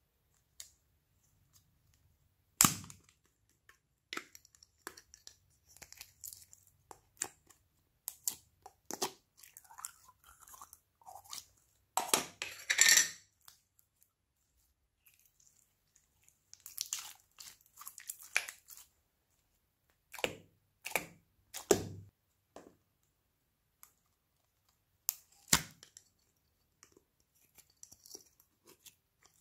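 Slime and its thin plastic tub being handled: scattered clicks and crackles of the tub being squeezed and opened, and the sticky crackle of slime being pulled and pressed. A sharp snap comes about three seconds in, and the loudest crackling comes around the middle.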